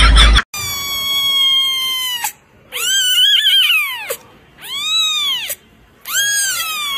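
A young kitten meowing loudly: four drawn-out cries, each rising and then falling in pitch. They follow a brief loud burst of noise that cuts off abruptly about half a second in.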